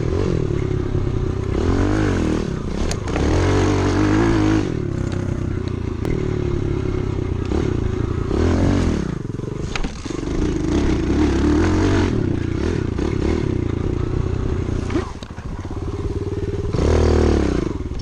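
Small single-cylinder pit bike engine being ridden, revving up and easing off again and again so its pitch repeatedly rises and falls. It dips briefly about fifteen seconds in, then revs hard again near the end.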